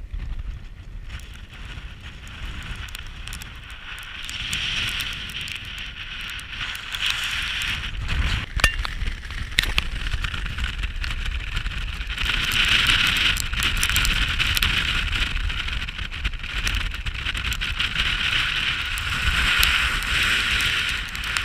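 Strong gusty wind buffeting the microphone: a constant low rumble under a rushing hiss that swells and fades with each gust, with a few sharp crackles and clicks.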